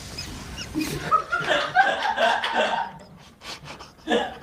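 A person laughing hard in repeated bursts, tailing off into quieter breathy puffs near the end.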